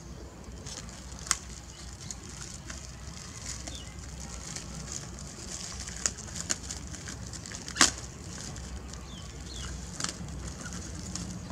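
Baby monkeys scrabbling over cardboard boxes: crackling scratches and scattered sharp taps on the cardboard, the loudest tap about eight seconds in.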